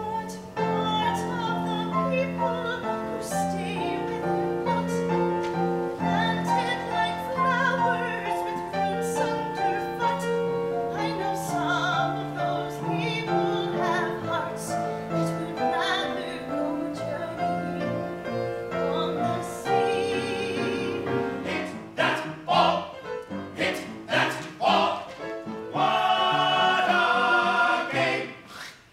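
A musical theatre cast singing together in chorus, with piano. Near the end a single voice holds a long, loud note with vibrato.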